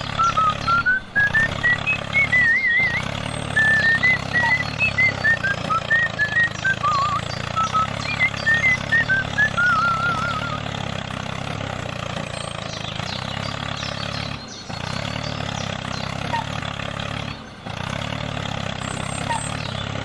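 A tractor engine drones steadily at a low pitch. High warbling chirps sound over it for the first half.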